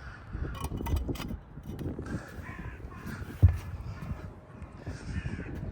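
A crow cawing several times, in short repeated calls. There is a single sharp knock about halfway through, and a rumble of wind or handling noise on the microphone.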